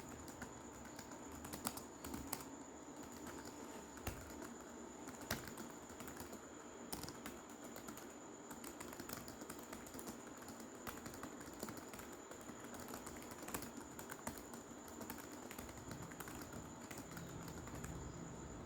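Rapid typing on a computer keyboard: a steady stream of quick, irregular key clicks.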